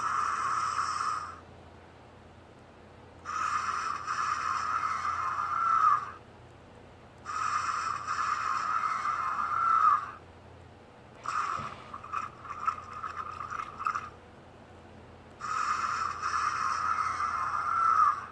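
Takara Tomy sound-and-light Tyrannosaurus rex toy playing its recorded dinosaur roar effects through its small built-in speaker: roughly three-second calls, one after another with short pauses between, the fourth broken into a string of short grunts. The uploader finds them a little quiet, lacking power.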